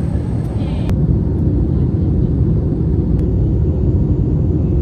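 Airliner cabin noise in flight: a loud, steady low rumble.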